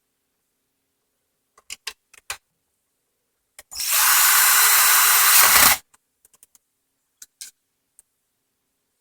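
A cordless power driver runs steadily for about two seconds, driving one of the small screws into the Roomba's plastic chassis, then stops abruptly. A few light clicks of plastic parts and tool handling come before and after it.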